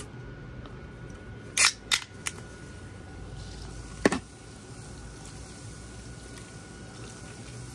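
A few sharp clicks about two seconds in and another about four seconds in, then soda poured from a can into a foil pan of beans, a faint steady splashing.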